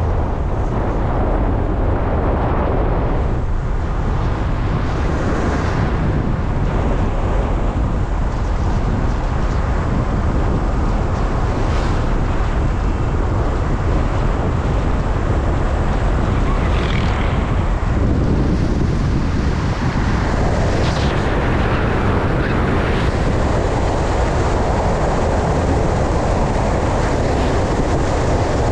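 Wind buffeting the microphone and road noise from a car driving along at speed: a steady low rumble with a hiss over it.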